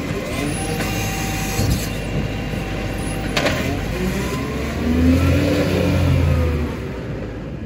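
Side-loading garbage truck's diesel engine running, with a few sharp clanks from the lifting gear as the arm comes down. About five seconds in, the engine revs up as the truck pulls away, then fades.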